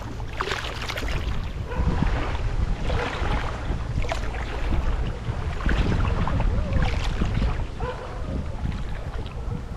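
Strong gusting wind buffeting the microphone, a low rumble rising and falling, over choppy river water.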